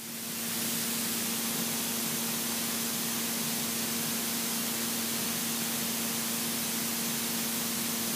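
Steady cockpit noise of a Robin DR400 in cruise: an even static-like hiss with a faint constant drone from the engine and propeller underneath. It builds up over the first half-second, then holds level.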